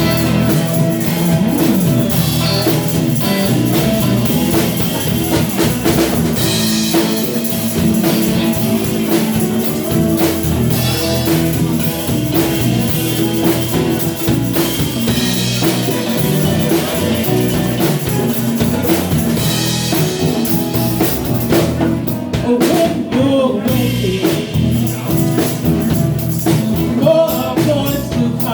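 Band music with a drum kit keeping a steady beat, guitar, and a voice singing in places.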